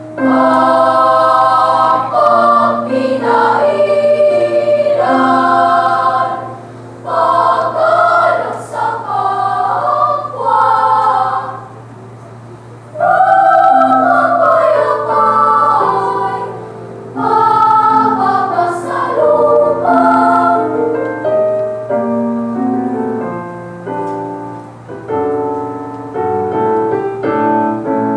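Youth choir of girls singing in several parts at once, in phrases with brief pauses between them.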